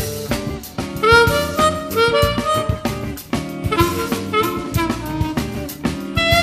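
Eb diatonic harmonica played in second position (key of B-flat), a quick run of short melody notes. It is accompanied by a backing track with drums.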